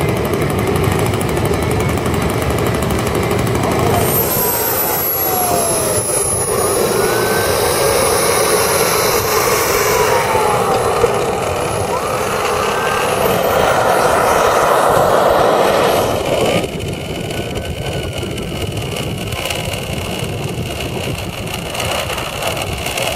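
Radio-controlled model aircraft running: a steady rushing roar with a high, thin jet whine that slowly falls in pitch, while engine notes rise and fall as planes move. The sound drops and thins about two-thirds of the way through, as the scale model jet climbs away.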